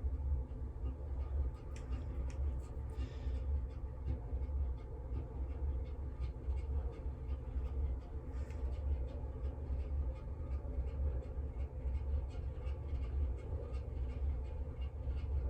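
A steady low hum, with faint scratchy strokes and light ticks of a paint brush working on the skin.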